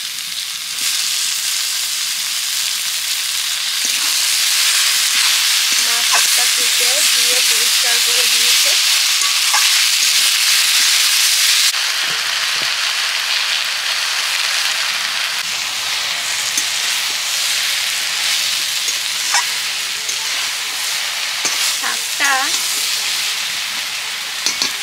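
Fresh kulekhara greens with potato and brinjal sizzling loudly in hot oil in a wok. The sizzle eases a little about halfway through, and later the spatula scrapes and clicks against the pan as the vegetables are stirred.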